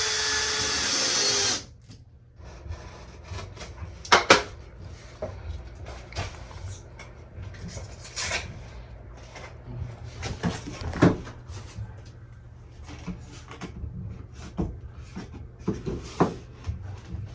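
A power tool runs for about a second and a half with a high whine, then cuts off. Scattered knocks and taps of work on wood and drywall follow.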